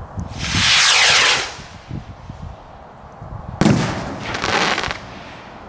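A Zeus King Cobra 75-gram firework rocket launches with a loud rushing hiss that falls in pitch as it climbs. About two seconds later it bursts with a sharp bang, followed by about a second of crackle as the stars spread.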